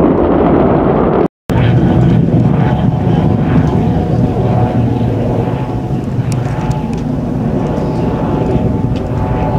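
H3 rocket's launch roar: a heavy, steady low rumble with scattered crackles. It cuts out for a moment about a second in.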